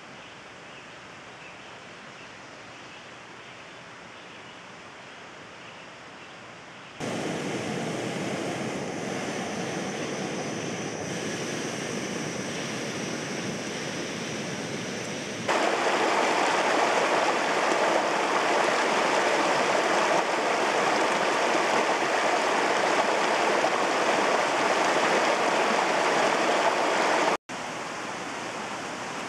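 Jetboil camp stove's gas burner hissing steadily, switching on abruptly with a faint high whistle and getting louder about halfway through; near the end it cuts off suddenly to a softer outdoor hiss.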